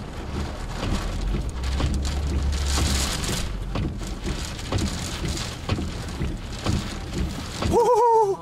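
Tornado winds buffeting a chase vehicle, with rain and debris pelting the windshield and body in a dense, irregular patter of hits. A heavy, deep wind rumble dominates the first three seconds.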